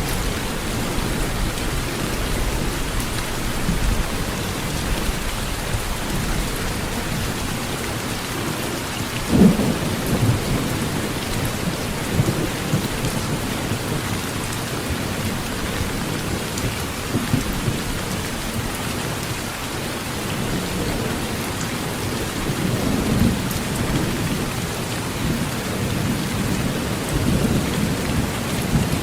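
Heavy rain drumming steadily on a tin roof, with thunder rumbling low underneath and a few louder low thumps, the strongest about nine seconds in.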